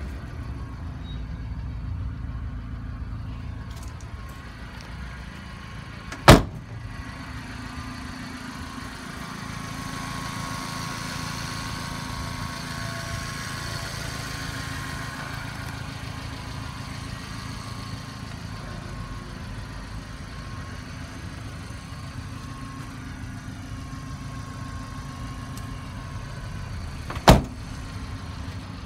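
Subaru Sambar kei truck's 660 cc four-cylinder engine idling steadily, with two sharp slams, one about six seconds in and one near the end.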